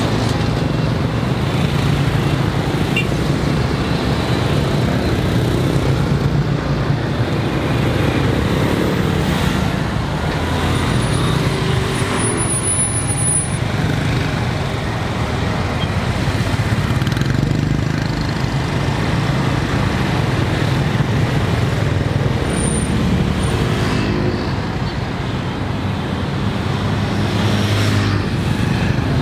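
Dense city road traffic: a steady stream of motorbike and scooter engines, mixed with cars, running and passing close by.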